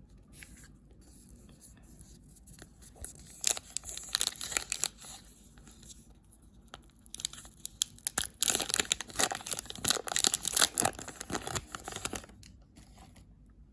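Foil trading-card pack wrapper being torn open and crinkled by hand, in scattered crackling bursts with the densest, loudest stretch from about seven to twelve seconds in.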